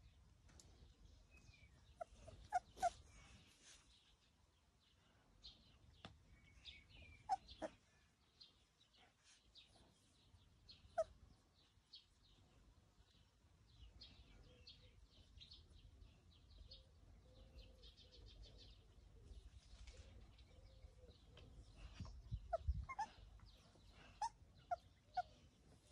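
Quiet outdoor ambience of small birds chirping, with a few louder short calls in small clusters near the start, around the middle and near the end.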